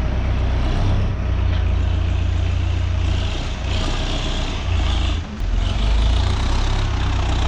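Tractor engine running steadily with a heavy low rumble, dipping briefly about five seconds in.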